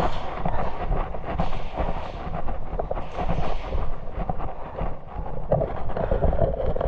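Wind rumbling on the microphone, with an irregular patter of footsteps and rustling.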